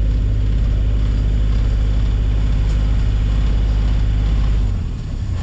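A sailboat's auxiliary engine running steadily as the boat motors along, a loud low hum. It gets quieter and changes in tone near the end.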